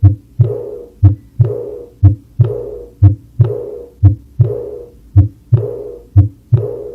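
Heart sounds played as an example: a steady lub-dub of two low thuds close together, repeating about once a second, seven beats in all.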